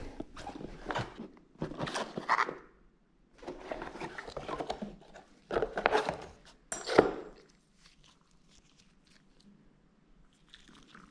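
A cardboard parts box being opened and handled with gloved hands: flaps and packing rustling and scraping in irregular bursts, with a sharp knock about seven seconds in, then only faint handling.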